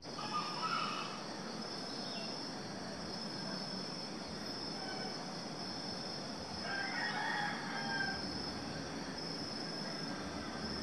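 Rooster crowing, once near the start and again about seven seconds in, over a steady, pulsing high-pitched chirring of insects.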